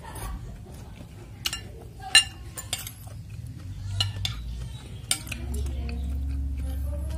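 Metal spoon and fork stirring bakso noodles in a bowl of broth, clinking against the bowl in scattered sharp clicks. The loudest clink comes a little over two seconds in.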